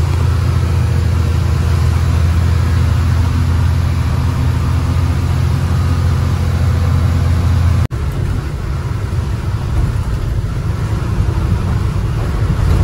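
Lorry engine running steadily, heard from inside the cab as a loud, low drone. About eight seconds in the sound breaks off for an instant and comes back rougher, with less of the low drone.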